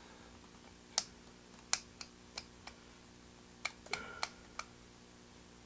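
Irregularly spaced sharp clicks, about ten of them, from the selector switches of a Sencore TC154 tube tester being worked during a check for shorts between the tube's elements, over a faint steady electrical hum.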